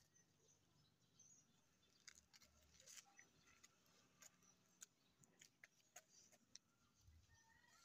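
Near silence with faint, scattered crackles from the newspaper burning, the crackles more frequent from about two seconds in as the flames spread.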